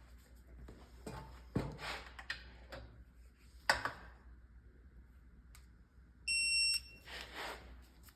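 A single electronic beep, about half a second long, from a digital torque wrench signalling its set torque. Before it come two sharp knocks and handling noise from tools at work on the gearbox.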